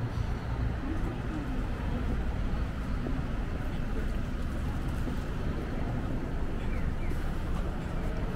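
Steady low rumble of city street ambience and traffic, unbroken throughout, with a few faint short high chirps near the end.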